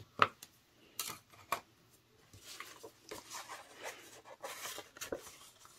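A few light taps in the first second and a half, then card stock rubbing and rustling as card pieces are handled.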